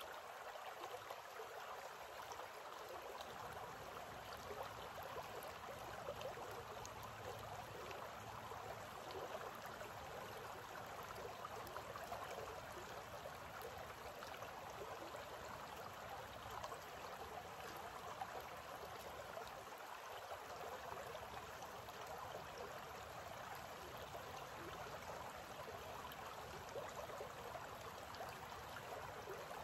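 Shallow, rocky creek running over stones: a low, steady rush of water with fine ripples.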